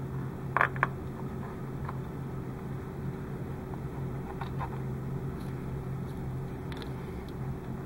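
Steady low electrical hum of room tone, with two small sharp clicks about half a second in and a few faint ticks later, from hands handling wires and a small glue bottle while tacking LED leads down on a plastic model hull.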